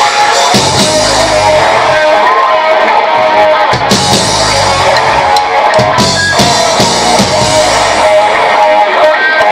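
Live rock band playing loudly: electric guitars, bass guitar and drum kit, with sustained guitar notes over regular drum hits.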